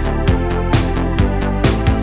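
Electronic background music with a steady drum beat.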